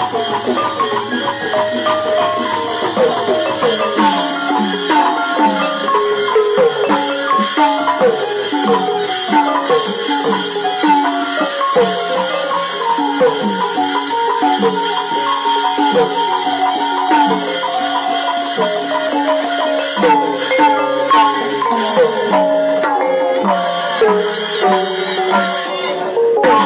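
Burmese nat pwe dance music in the hsaing waing style: a fast, busy melody of short struck notes on tuned percussion, many sliding down in pitch, over a steady shaker-like rattle.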